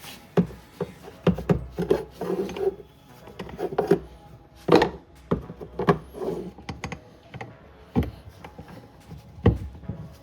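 Irregular knocks, taps and scraping of hard parts and tools being handled while the washing machine gearbox is worked on. There are about a dozen sharp knocks at uneven intervals, with rubbing between them.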